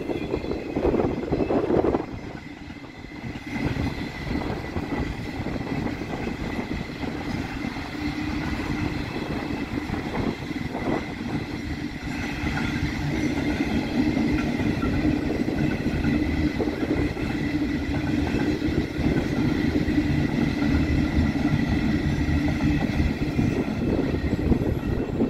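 Acid freight train's wagons rolling past, a steady rumble of wheels on rails, louder for the first two seconds. A thin steady whine sits above the rumble.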